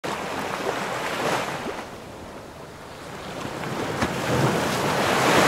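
Rushing water sound effect that swells, falls away, then builds again, with a sharp splash about four seconds in.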